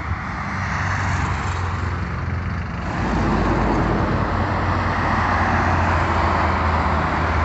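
Buses and a lorry passing on a highway: diesel engines running with tyre noise on the asphalt, growing louder about three seconds in as heavier vehicles pass close.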